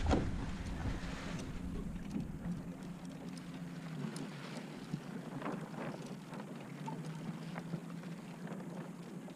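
Small sailing catamaran under way under spinnaker: water rushing and lapping along the hulls with light wind on the microphone. A steady low hum runs underneath, with occasional small ticks.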